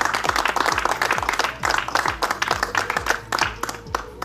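A small group applauding, the clapping thinning out and stopping near the end, over background music with a steady beat.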